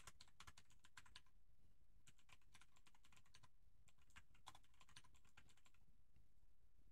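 Faint computer keyboard typing, in about three quick bursts of keystrokes with short pauses between them.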